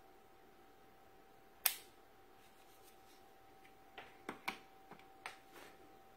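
Sharp plastic clicks and taps from a handheld rechargeable LED work light being switched and handled: one loud click about a second and a half in, then a quick run of smaller clicks and taps a couple of seconds later as it is fixed onto a stainless steel appliance door.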